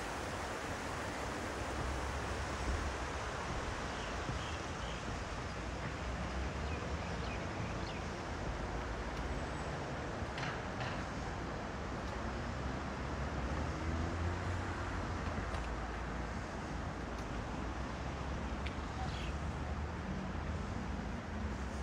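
Steady rushing of river water, with a low rumble of traffic or wind underneath and a few faint chirps.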